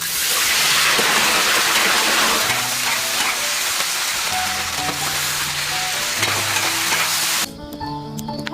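Food sizzling loudly in hot oil in a pan, a steady hiss that cuts off abruptly about seven and a half seconds in.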